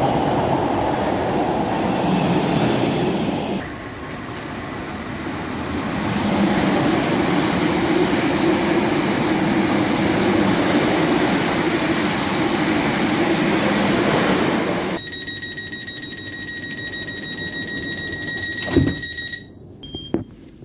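Running noise of a Class 707 electric train, a steady rumble with rail noise that dips for a couple of seconds and then returns. About three-quarters of the way through it cuts off abruptly and gives way to a high, steady electronic tone that lasts a few seconds, with a single thump near the end.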